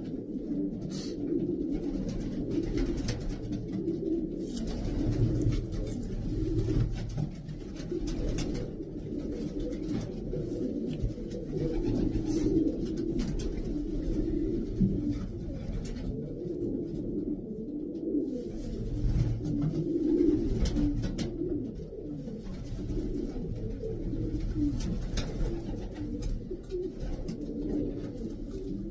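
Several racing pigeons cooing, their low warbling calls overlapping continuously.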